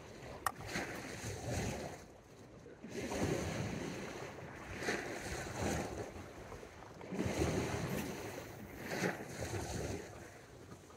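Small sea waves washing against shoreline rocks, the rush swelling and ebbing every few seconds. There is a single sharp click about half a second in.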